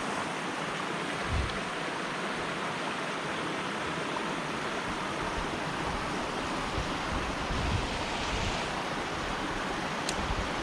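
Small creek running, a steady rushing hiss of flowing water, with a couple of brief low bumps.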